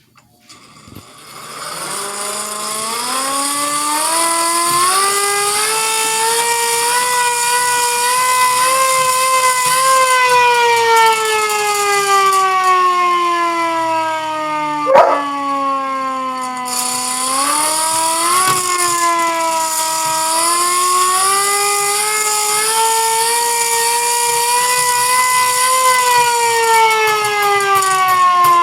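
Tornado warning siren winding up from a low pitch into a long wail, sliding down partway and then winding back up, as a slow rise and fall in pitch. A sharp knock sounds about halfway through.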